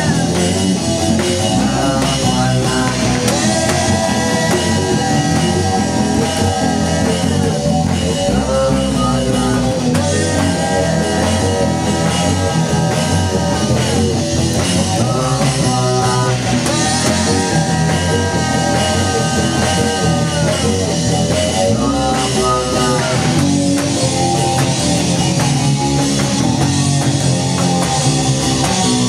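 A rock band playing live, with electric guitar and drum kit loud and steady. Long held notes of about three seconds each recur every six or seven seconds.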